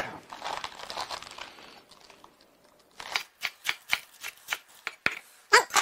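A chef's knife shreds a head of crisp iceberg lettuce on a wooden chopping board. Soft leafy rustling comes first, then from about halfway a run of quick crunching chops, about four to five a second.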